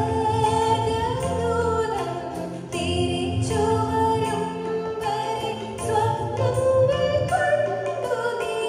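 A woman singing a slow melody live into a microphone, holding notes that bend and glide in pitch, backed by instrumental accompaniment with a steady percussion beat.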